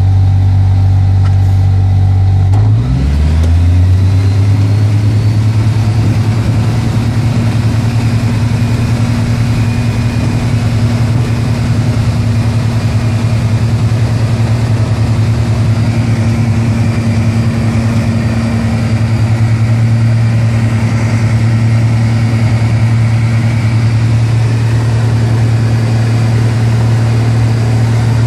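FK9 ultralight's engine and propeller heard from inside the cockpit, rising in pitch to takeoff power about three seconds in, then running steadily at full power through the takeoff run and climb.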